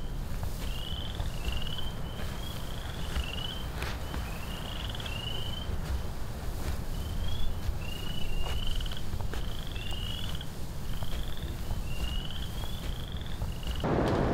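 Short rising chirps from small animals, one or two a second, over a steady low rumble. Right at the end a louder rushing noise comes in.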